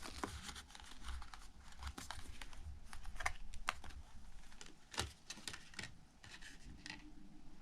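Lenormand cards being handled and laid out on a table: light rustling and slides with scattered soft taps as the cards are set down, the clearest taps about three and a half and five seconds in.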